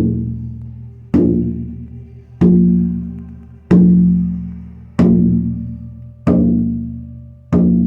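24-inch elk-hide frame drum on a maple hoop, struck with a soft beater in a slow, steady beat of about one stroke every 1.25 seconds. There are seven strokes, each a deep boom that rings on until the next.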